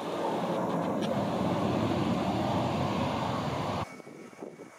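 Boeing 737-800 jet engines (CFM56-7B) running as the airliner taxis past, a loud steady rush. About four seconds in it drops abruptly to a much fainter sound.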